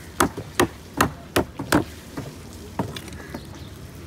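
Knife chopping through raw fish onto a wooden chopping block: five sharp chops about two to three a second, then a couple of lighter ones, stopping about three seconds in.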